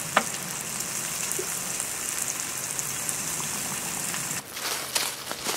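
Water pouring from a water bottle into a dog's bowl, a steady splashing hiss that stops abruptly about four and a half seconds in, followed by a few light knocks.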